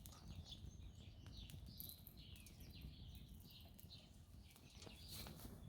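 Faint birds chirping in quick, short notes that fall in pitch, over a low steady rumble.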